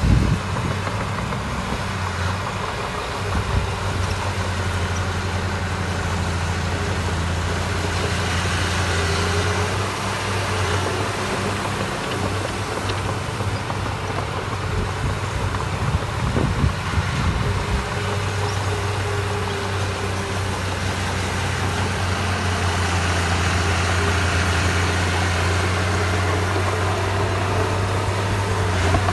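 Diesel engine of heavy construction machinery running steadily with a low hum, with a few low knocks about halfway through.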